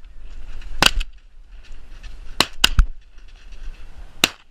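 Shotgun shots: about five sharp reports, one about a second in, a quick run of three around two and a half seconds, and one near the end, over low wind rumble.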